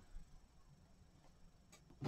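Near silence: room tone, with two faint short clicks near the end.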